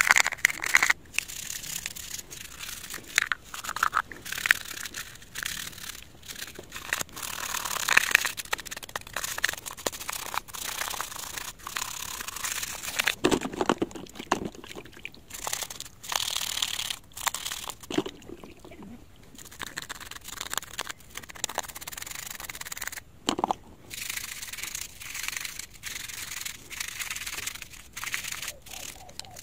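Toothbrush scrubbing a wet plastic Bluetooth speaker housing: quick, irregular rubbing strokes, with a few splashes of soapy water in a bowl.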